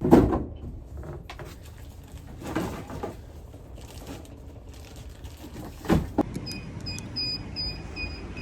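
Two heavy thumps about six seconds apart, with some rustling between, then a car's warning chime beeping at an even pace, about three beeps a second.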